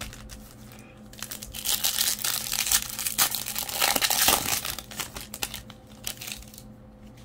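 A Topps baseball card pack's wrapper being torn open and crinkled. A dense crackling that swells about a second and a half in and eases off after about four and a half seconds.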